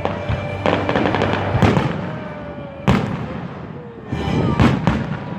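Fireworks going off: a run of crackling pops and bangs, with one sharp bang about three seconds in and another burst of bangs near the end.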